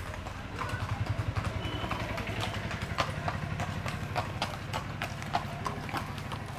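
Hoofbeats of a Marwari horse walking under a rider on a packed dirt lane: a run of uneven clip-clop knocks. A low engine hum runs underneath and fades out near the end.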